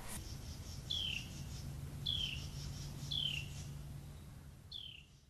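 A bird calling: four short chirps that each slide downward, spaced about a second apart, faint against a low background.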